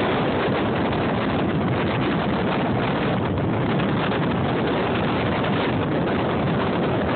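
Strong storm winds, 50+ mph, buffeting a phone's microphone: a steady, dense rush of noise with no breaks.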